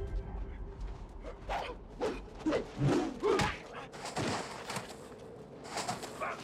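Fight sound effects from a hand-to-hand duel: a string of separate thuds and swishes.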